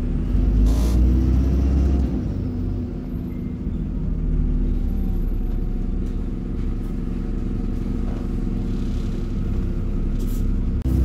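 Diesel bus engine and ZF automatic gearbox pulling the bus along, heard from inside the passenger saloon: a steady low engine rumble that swells and eases as the bus speeds up and slows, with a brief rattle about a second in and again near the end.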